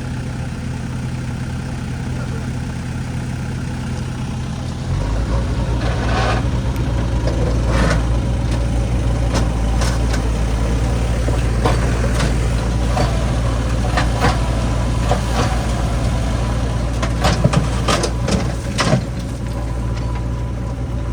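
Diesel engine idling, then running louder and heavier from about five seconds in. Scattered knocks and clatters ride over it, with a quick cluster of sharper knocks near the end.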